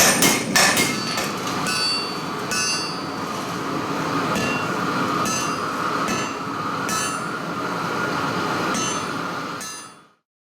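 Blacksmith's hammer striking metal on an anvil, each blow ringing. A quick run of blows in the first second gives way to slower single strikes every second or two over a steady rushing noise, and the sound fades out just before the end.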